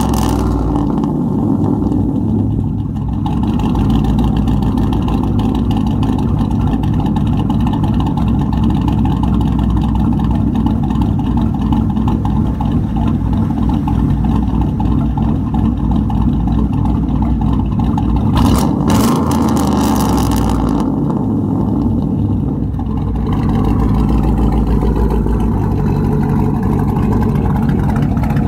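Chevrolet Silverado 5.3-litre V8 with a BTR Stage 2 truck cam idling with a choppy cam lope through true dual exhausts. Just after the start the revs settle back down from a blip, and about 18 seconds in it is revved once briefly and drops back to idle.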